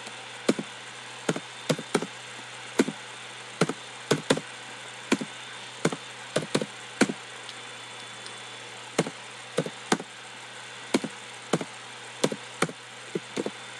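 Computer keyboard keys clicking as numbers and commas are typed one key at a time: sharp, irregular taps about two or three a second, over a steady background hiss.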